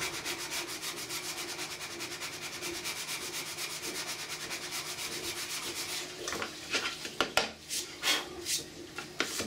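A coarse flat file rasping on a 3D-printed ABS plastic part in rapid, even back-and-forth strokes, taking down a raised plastic weld. After about six seconds the strokes stop and give way to a few irregular sharp knocks and scrapes.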